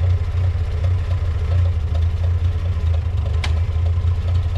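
International Harvester loader-backhoe's engine running steadily with a deep, even hum, with a single sharp click about three and a half seconds in.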